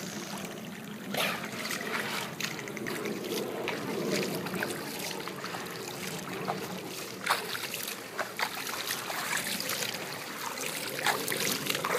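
Pool water lapping and splashing as bottlenose dolphins swim and surface at the edge, with scattered short splashes.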